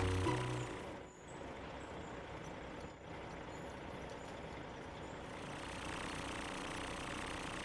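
Steady truck engine sound effect as a cartoon crane truck and tow truck drive off, after a short music phrase ends in the first second.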